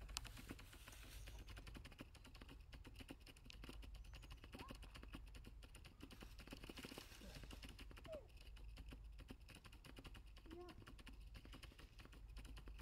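Near silence: faint outdoor ambience with a dense, fast crackle of tiny clicks and a low hum, broken by a few brief, faint squeaks or distant voices.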